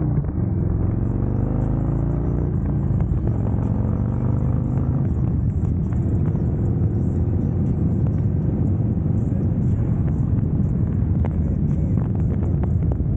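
Harley-Davidson Road Glide Special's Milwaukee-Eight V-twin engine pulling while riding on the road, its pitch rising over the first few seconds as the bike accelerates. After that it settles into a steady rumble under wind noise.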